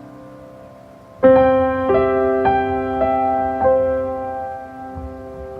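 Slow piano music: a held chord dies away, a new chord is struck about a second in, and single notes follow roughly every half second over it.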